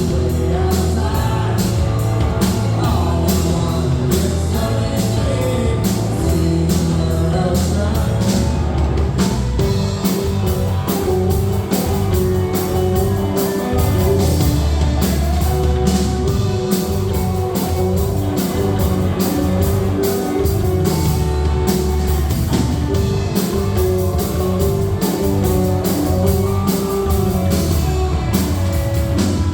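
Rock music with singing, a steady drum beat, bass and guitar.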